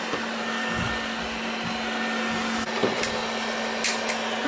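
Neatsvor X600 Pro robot vacuum cleaner running, a steady whirring with a constant low hum, with a few light clicks near the end.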